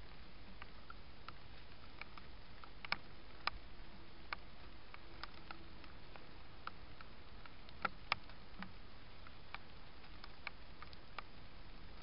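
Mice foraging in straw: scattered faint clicks and ticks at an uneven pace, with a few sharper clicks about three and eight seconds in, over a steady hiss.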